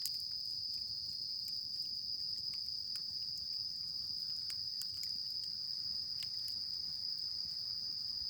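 Crickets trilling in one steady high-pitched drone, with scattered faint crackling clicks over it.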